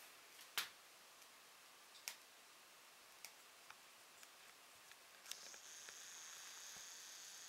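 Near silence with a few faint, scattered clicks. About five seconds in, a faint steady high whine starts and runs on: a camera's zoom motor as the lens zooms out.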